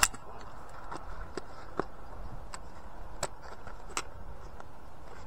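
Hard plastic clicks and knocks from a black plastic rat trap box being handled and a trap fitted into its housing. A sharp click right at the start is the loudest, followed by scattered single clicks about once a second.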